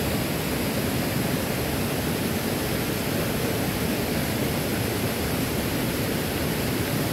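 Steady rush of flowing river water: an even hiss without breaks or distinct events.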